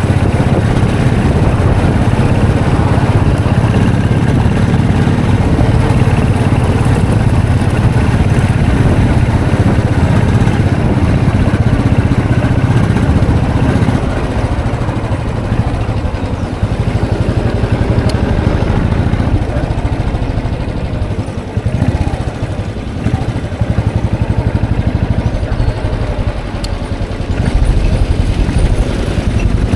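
Royal Enfield Classic 500's single-cylinder engine and exhaust running. It gets quieter about halfway through and picks up again near the end.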